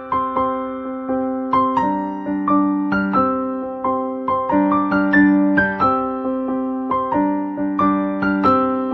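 Background music played on a keyboard: a gentle piano-like melody of notes struck about twice a second over held chords.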